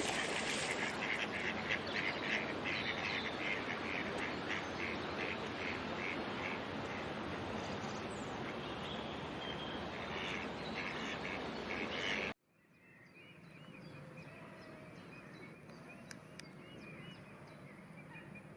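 Waterfowl calling: a rapid run of short, repeated calls over a steady background hiss, cutting off abruptly about twelve seconds in to a quieter stretch with fainter calls.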